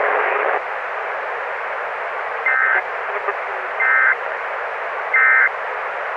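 Steady radio static hiss with three short bursts of Emergency Alert System digital data tones, the end-of-message signal, evenly spaced about a second and a half apart starting about two and a half seconds in.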